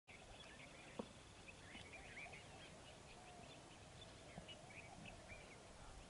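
Faint chirps and twitters of several small birds over a quiet open-air background, with a single sharp click about a second in.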